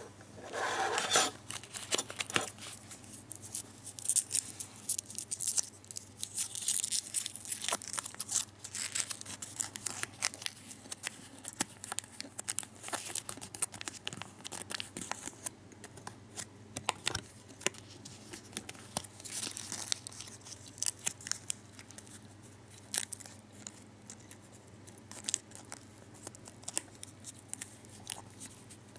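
Foil-backed gum wrapper crinkling and crackling under the fingers as it is flattened and creased, in many short, irregular crackles. A louder burst comes about a second in.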